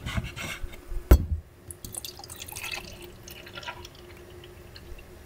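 Milk poured from a plastic bottle into a metal camping mug, a faint uneven trickle and splash. A few knocks come before it, the loudest about a second in.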